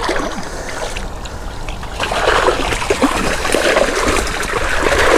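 Water splashing and trickling, getting louder about two seconds in.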